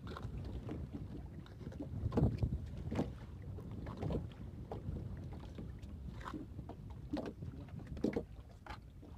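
Wind buffeting the microphone over water sounds around a small fishing boat, with a few scattered knocks and rustles as a fishing net is hauled aboard by hand.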